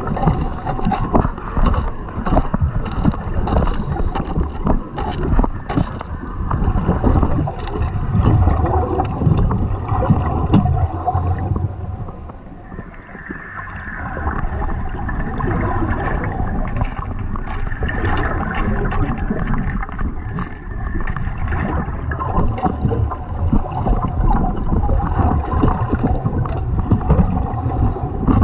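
Underwater sound of a diver's camera in swell: low rumbling water surge and gurgling, with many scattered clicks. About halfway through the rumble briefly dips, and a steady hum holds from then on.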